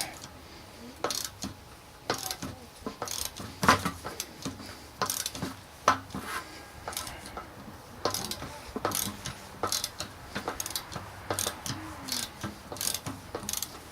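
Socket ratchet clicking in short, irregular runs as a 13 mm bolt is turned with a deep-well socket, with scattered clinks of the tool against metal.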